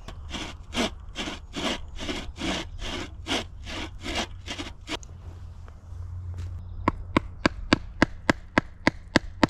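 Hand-powered wooden-framed bow saw cutting through a wooden post: about a dozen even back-and-forth strokes, roughly two and a half a second, then it stops. About two seconds later comes a quick run of about nine sharp taps, roughly three a second.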